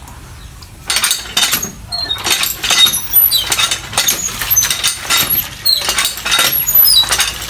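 Water splashing into a plastic basin of wild mushrooms being washed, first tipped from a plastic tub and then running from a hand pump's spout. Uneven splashes start about a second in and carry on in a busy run.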